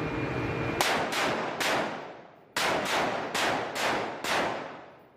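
Gunshots: eight sharp reports, three and then five after a short pause, each with a long ringing tail.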